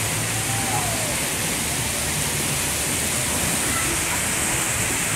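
Steady rush of falling and spraying water from a water-park play structure, with faint voices in the background.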